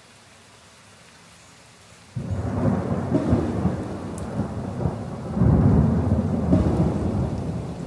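Thunder sound effect over rain: a faint hiss of rain, then a sudden crash of thunder about two seconds in, rumbling on and swelling again midway before slowly fading.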